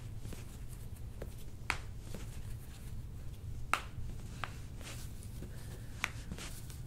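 Sharp crunching cracks from the joints of a patient's foot and ankle as a chiropractor mobilises it by hand: three clear cracks about two seconds apart, with fainter clicks between, over a steady low hum.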